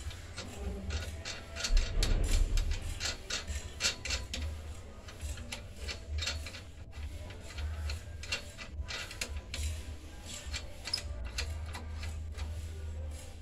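A screw being turned by hand to tighten an antenna's mounting bracket on a metal pole: irregular clicks and scraping of metal on metal, with a louder low bump about two seconds in.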